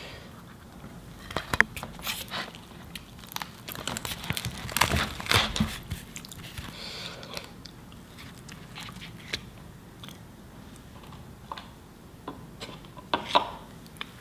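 Close-miked chewing and crunching of food in the mouth, with a dense run of crisp bites and crackles in the first half, quieter later, and a few sharp clicks near the end. In between, soft naan bread is torn and dipped into curry sauce.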